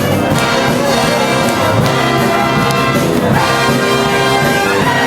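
Wind band playing live dance music, with brass (trumpets and trombones) carrying sustained notes and chords.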